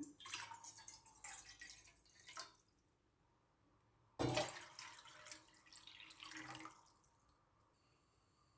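Liquid being poured or splashing, in two spells of about two to three seconds each with a short quiet gap between them.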